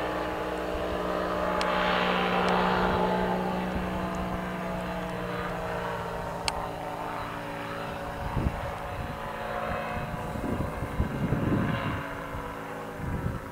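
Kolb ultralight's engine and propeller droning as it passes low and climbs away, loudest about two seconds in and fading as it goes. Wind buffets the microphone in the second half.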